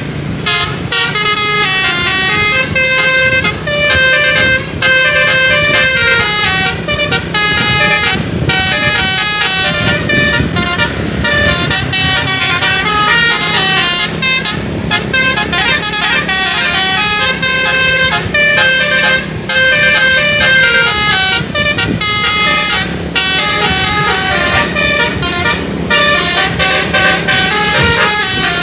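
Bus telolet musical air horn playing a long, fast melody of many stepped notes, several a second, rising and falling in pitch, with the bus engine running underneath.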